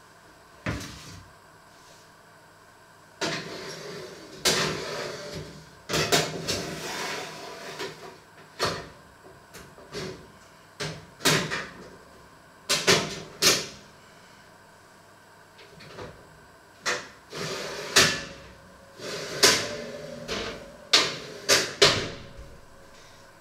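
Kitchen clatter from someone working at the oven: an irregular string of sharp knocks and bangs of cookware, baking tray, oven door and cupboards, with a busier stretch of rustle and clatter about three to eight seconds in.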